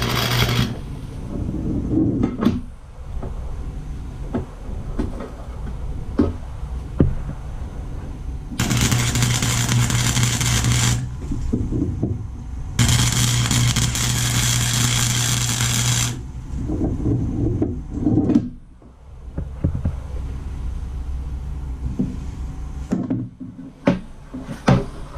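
Chicago Electric 125-amp flux-core wire welder arc welding a blob of weld onto the end of a rebar handle: a crackling hiss over a steady hum, in three runs. One stops under a second in, one lasts about two seconds from around nine seconds in, and one lasts about three seconds from around thirteen seconds in, with scattered clicks and knocks between them.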